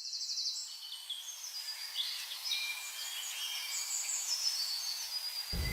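Several birds chirping and trilling together, many high calls overlapping. A low rumbling noise cuts in just before the end.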